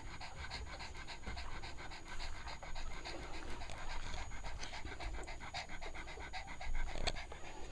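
Cavalier King Charles spaniel mother panting quickly and evenly, several breaths a second, with a single sharp click about seven seconds in.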